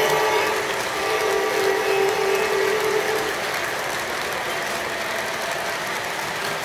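Model freight train cars rolling past on the layout track, their wheels and couplings making a steady mechanical clatter. The locomotive's horn holds a low note that stops about three seconds in.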